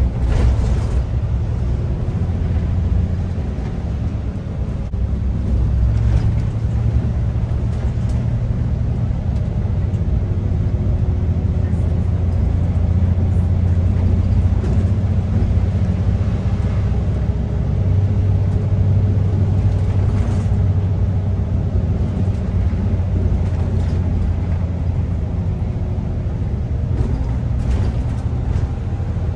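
City bus under way, heard from inside the passenger cabin: a steady low drone from the drivetrain, with road noise and a faint whine, shifting in pitch a few times as the bus changes speed.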